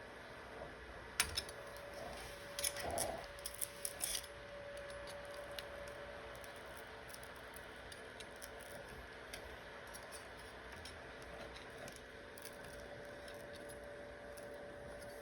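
Small metal repair tools clicking and tapping while an iPhone is being opened: a couple of sharp ticks about a second in and a quick cluster of clicks around three to four seconds in, over a faint steady hum.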